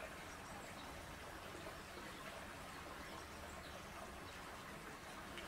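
Faint water lapping and splashing in a polar bear pool as the bears swim, over a steady background hiss.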